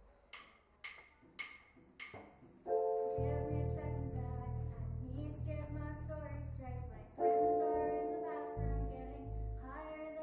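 Four evenly spaced clicks counting in, then a school band starts playing: held keyboard chords over a pulsing low part, with a chord change about halfway through.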